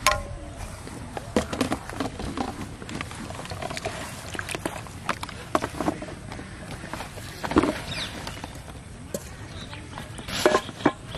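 Irregular knocks, taps and rustles from a plastic tub holding live catfish and from fishing rods being handled over it. A few sharper, louder strikes come just after the start, about two-thirds of the way through, and near the end.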